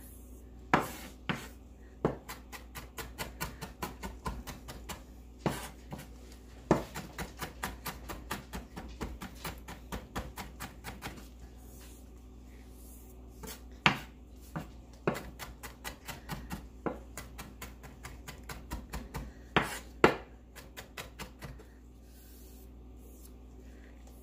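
Chef's knife mincing on a wooden cutting board: runs of quick taps of the blade against the wood, several a second, broken by short pauses, with a few louder chops.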